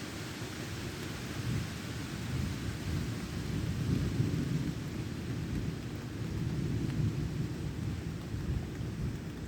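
Heavy rain falling steadily, with a long low rumble of thunder that builds about a second and a half in, is loudest around four seconds, and keeps rolling to the end.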